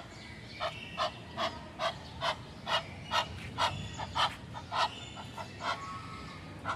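An animal calling in a run of about a dozen short, harsh notes, evenly spaced at roughly two to three a second.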